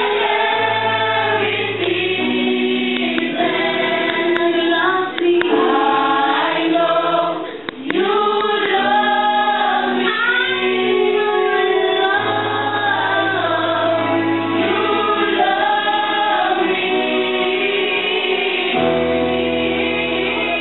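Mixed-voice church choir singing a gospel hymn over sustained low bass notes, with a brief break in the sound a little before halfway.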